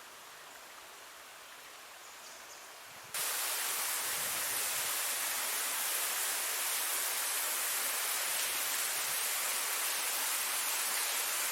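A small rainforest creek running over rocks, a steady rushing of water. It is faint at first, then about three seconds in it becomes suddenly much louder and holds steady.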